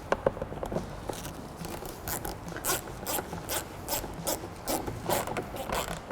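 Hand ratchet with a 10 mm socket clicking as it runs door-panel screws in, a steady run of clicks about three a second.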